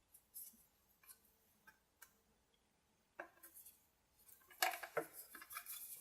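Scattered light clicks and small rattles of tools and parts being handled, with a denser run of clicking and rattling in the last second and a half.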